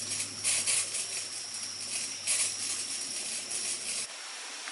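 A steady high-pitched insect drone, with a few short rustling bursts over it. A low hum cuts off abruptly about four seconds in.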